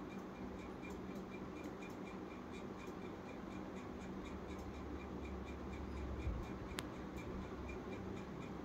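Soft rubbing of fingers pressing the sealed edges of folded dough pastries on a rolling board, over quiet room tone. A faint regular ticking of about three a second runs underneath, and there is one sharp click about seven seconds in.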